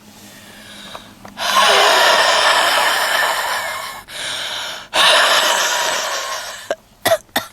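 A woman's heavy breathing: two long, loud, noisy breaths of about two and a half and one and a half seconds, then a few short sharp sounds near the end.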